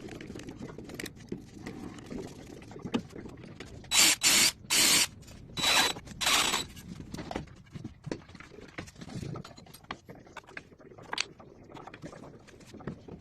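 Five short hisses from an aerosol spray can, clustered about four to six and a half seconds in, among light clicks and handling noises.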